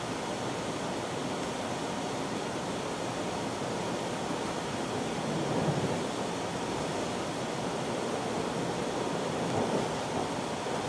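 Steady rumble and hiss inside a moving GO Transit bilevel passenger coach: wheels rolling on the rails, with small swells about six seconds in and near the end.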